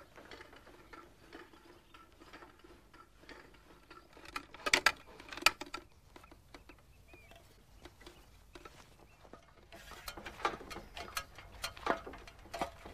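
Scattered clicks and knocks of metal parts on a makeshift steel lift rig being worked by hand, with a quick cluster of sharp clicks about five seconds in and more clatter from about ten seconds on.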